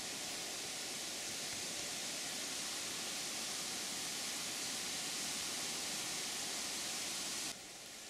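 Wind rustling through the leaves of a birch canopy: a steady, even hiss that drops suddenly to a quieter hiss near the end.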